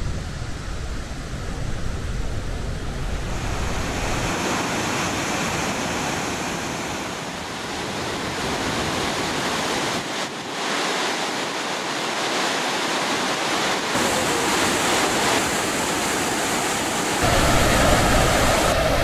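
Victoria Falls on the Zambezi: the steady rushing noise of the falling water. It shifts abruptly in tone and loudness several times and is loudest near the end, with wind buffeting the microphone in the first few seconds.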